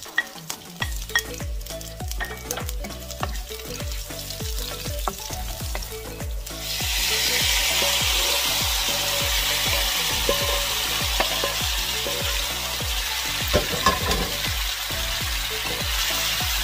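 Sliced onions and garlic frying in oil in a nonstick pan, with a wooden spoon clicking against the pan. About six and a half seconds in, cooked eggplant and tofu are tipped into the pan and a loud, steady sizzle takes over while they are stirred. Background music with a steady beat runs underneath.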